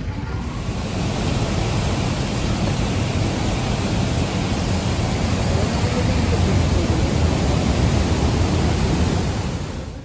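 Steady, dense rushing of Devi's Fall, white water pouring down the rock gorge, easing off near the end.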